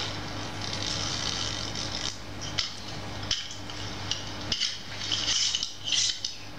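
Soundtrack of a projected film playing over a hall's speakers: a series of sharp clicks and clinks of handled equipment, coming thick and fast in the second half, over a steady low hum.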